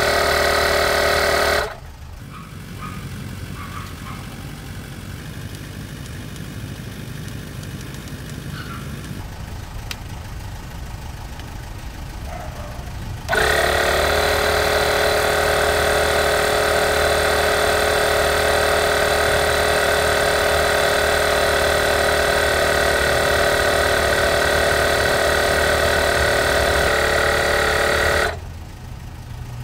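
Parkside PMK 150 A1 portable tyre compressor running while it pumps air into a car tyre: a loud, steady motor-and-piston hum. It drops much quieter about two seconds in, comes back loud after about thirteen seconds, and cuts off shortly before the end.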